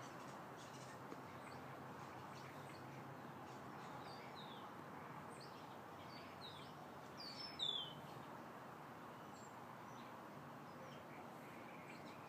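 Quiet outdoor ambience with birds chirping now and then over a steady low background noise. One louder call slides down in pitch about seven and a half seconds in.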